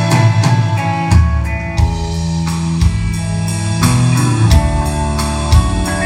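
Live rock band playing an instrumental passage: electric guitar over bass guitar and drum kit, with a steady beat of cymbal and drum hits.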